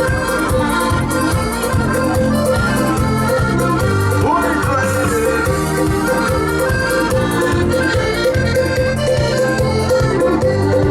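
Accordion playing a lively dance tune over a steady bass and drum beat. This is an instrumental break between sung verses.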